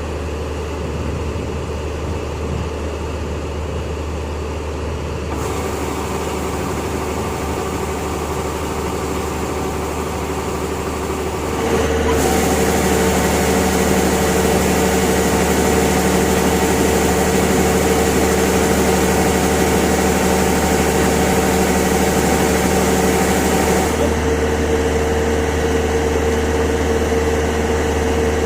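Engine of heavy farm machinery running steadily, with a constant low hum and steady tones. The sound changes abruptly about five, twelve and twenty-four seconds in, and is louder from about twelve seconds on.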